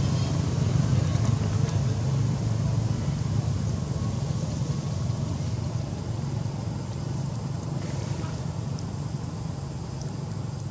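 A motor vehicle's engine running low and steady, slowly fading away.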